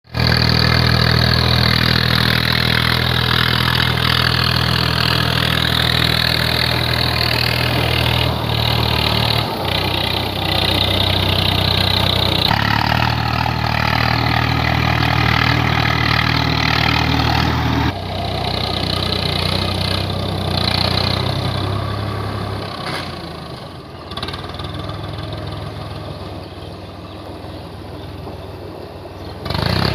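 Swaraj 855 FE tractor's diesel engine running steadily while it drives a rotavator through wet, muddy soil. The sound changes abruptly a few times and grows fainter in the last several seconds as the tractor moves away.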